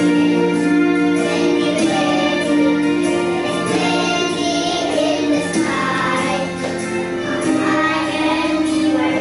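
Young kindergarten children singing a song together over backing music with steady held notes.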